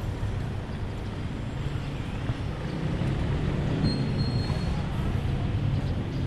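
Road traffic going by: a steady low rumble of vehicle engines.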